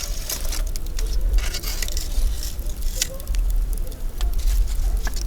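Campfire crackling: irregular sharp pops and snaps of burning wood over a low steady rumble.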